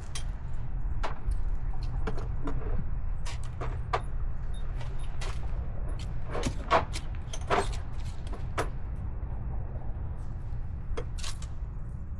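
Scattered metallic clicks and clinks of hand tools and clamp hardware at a truck's battery terminals, over a steady low hum.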